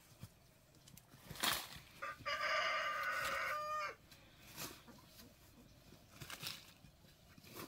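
A rooster crowing once: a single held call of about a second and a half that drops in pitch at the end. A sharp knock comes just before it, with a few fainter short knocks later on.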